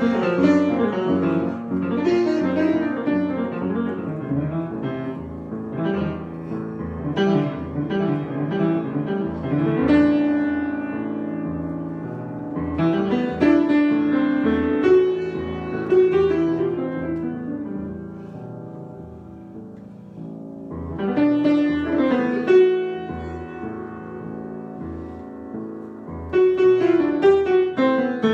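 Solo piano improvisation: struck chords and melodic runs over bass notes, with busier passages alternating with quieter held chords.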